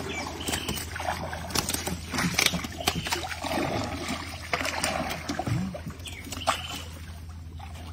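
Wooden paddle stroking through the water beside a small wooden outrigger canoe: splashing and sloshing with scattered sharp knocks and clicks.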